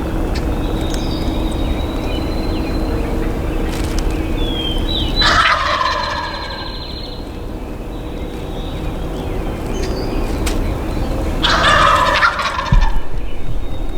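Wild turkey gobbler gobbling twice, a rattling call about five seconds in and another near the end, over steady low background noise.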